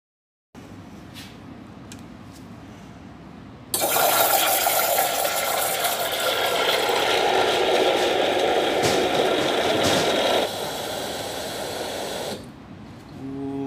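Scrægg steam egg scrambler jetting steam through its wand into a cup of egg, cooking it into fluffy scrambled egg. It is a loud, steady hiss that starts about four seconds in, eases slightly near the end, then cuts off, with a few faint clicks before it.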